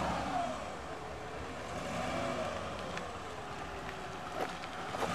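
A motor vehicle engine running, its pitch slowly falling over about four seconds, with a few light clicks near the end.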